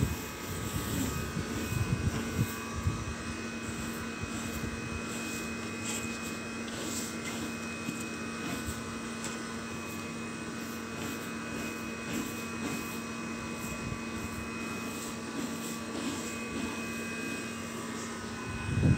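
Steady mechanical hum with a constant low tone and a faint higher whine, with light rustling now and then.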